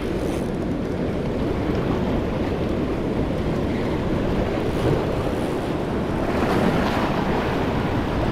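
Surf waves washing and breaking in shallow water, with wind rumbling on the microphone; the wash swells louder about six seconds in.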